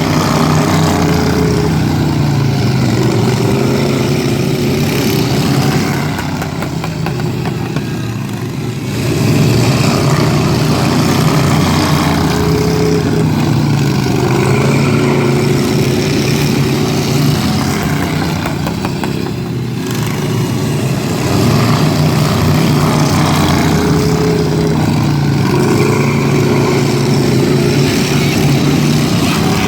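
Several racing lawn mower engines running hard around an oval track, rising and falling as the pack comes past, with lulls about six and twenty seconds in.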